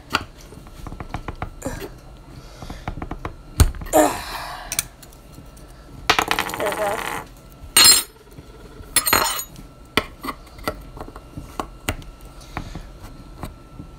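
A metal spoon clicking and scraping against a fidget spinner while prying at one of its bearings to pop it out. There are irregular sharp clinks, with longer scrapes about four, six to seven, and nine seconds in.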